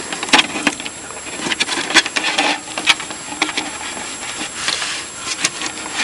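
A security cable and its cinch lock device being handled: the cable rubbing and scraping as it is bent and pulled, with a few sharp clicks scattered through.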